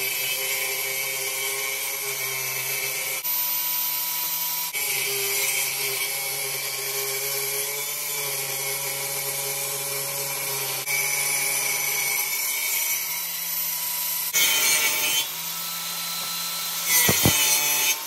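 Benchtop table saw running and cutting through a bark-edged log slab: a steady motor whine under the hiss of the blade in the wood. The pitch and level jump abruptly several times.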